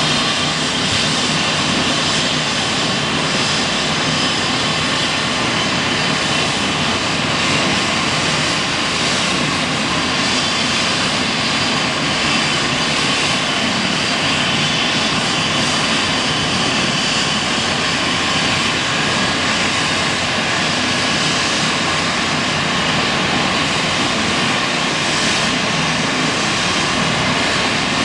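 Trauma helicopter's turbine engine and rotor running steadily: a loud rushing noise with a high whine over it.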